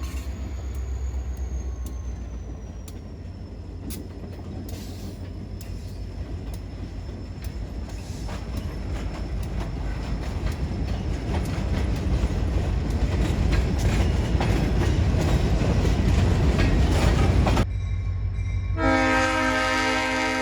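Diesel freight train passing: a low rumble with wheels clicking over the rails, growing steadily louder. It drops off sharply near the end, and the locomotive's air horn then sounds in a long blast.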